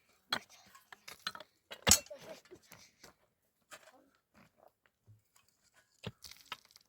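Scattered sharp knocks and clinks, like things being handled, the loudest about two seconds in and a small cluster near the end.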